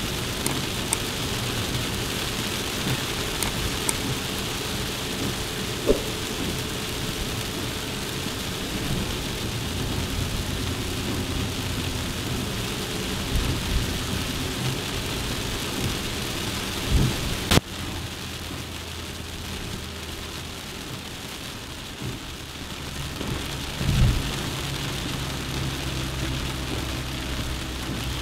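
Suzuki Jimny driving, its engine running steadily under a constant hiss of rain or road noise on the body, with a sharp click about two-thirds of the way through and a couple of dull knocks from bumps.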